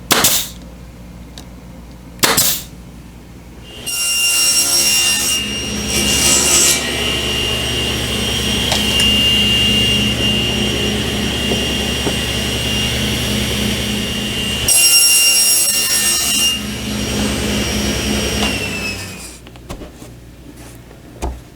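Two sharp knocks, then a woodworking power tool runs steadily for about fifteen seconds, with a hum and a high whine. It grows louder three times as it cuts into wood.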